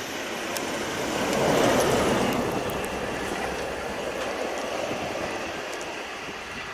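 SM42 diesel shunting locomotive running light past at speed. Its sound swells to a peak about two seconds in, then slowly fades.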